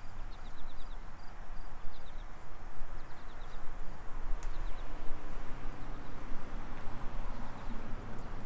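Outdoor ambience dominated by uneven wind noise on the camera microphone, over a steady low hum. In the first few seconds come runs of short, high-pitched chirps in quick succession, from an insect or bird.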